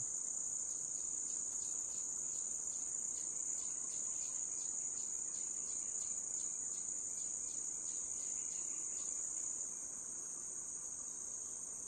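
Steady high-pitched insect drone, with a second insect ticking about twice a second that stops near the end.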